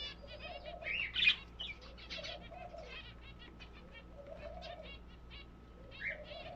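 Pigeons cooing, a low coo repeating about every two seconds, amid a busy chatter of quick, high bird chirps.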